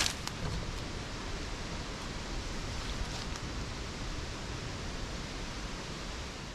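Steady rushing of wind through the forest and across the microphone, with a sharp rustling knock of the camera being handled right at the start.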